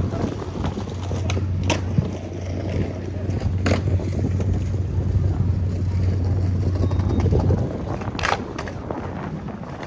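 Low, steady engine drone that fades out near the end, with a few sharp knocks or scrapes over it.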